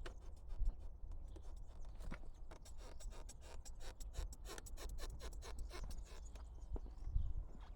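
A quick, irregular run of scratchy rubbing and clicking, like material being handled and worked by hand, over a steady low rumble.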